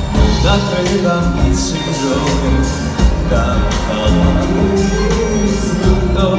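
Live pop song played by a band with drums, with a man and a woman singing a duet into microphones.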